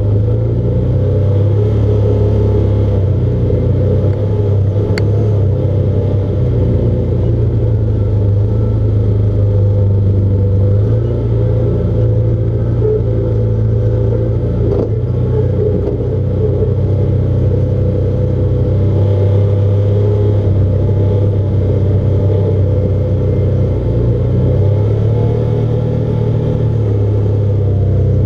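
Side-by-side UTV engine running at a steady low speed along a rough dirt trail, heard from inside the cab, its pitch stepping up and down a little now and then.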